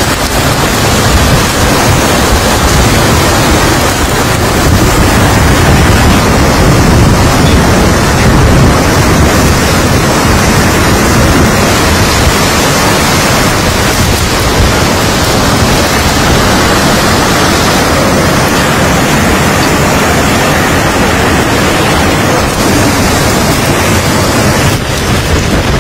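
Cyclone-force wind and driving rain: a loud, steady rushing noise.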